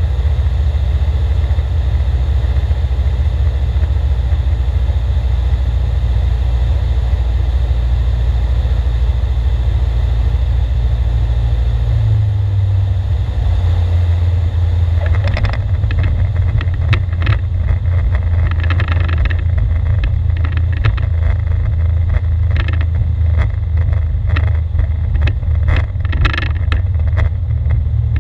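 Engine and propeller of a Czech SportCruiser light aircraft, its four-cylinder Rotax 912, heard inside the cockpit as a steady low drone whose note shifts about twelve seconds in as the plane comes down onto the runway. From about fifteen seconds on, irregular clicks and rattles come through as it rolls along the runway.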